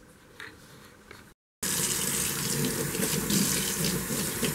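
Sink faucet running, its stream splashing onto a head being rinsed beneath it in the basin; the steady rush starts abruptly about a second and a half in.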